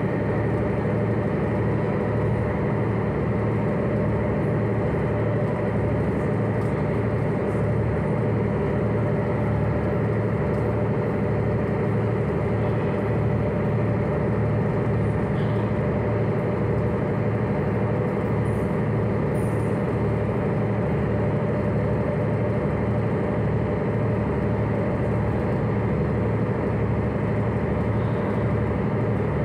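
Engine of the Hakone sightseeing cruise ship Victory running steadily under way, heard from inside the passenger cabin: a constant low drone with a regular throb underneath.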